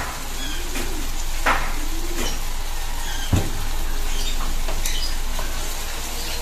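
Thick butter chicken sauce sizzling and bubbling in a frying pan, with a few sharp pops and a single loud thump about three seconds in. Near the end a wooden spatula stirs it through the pan.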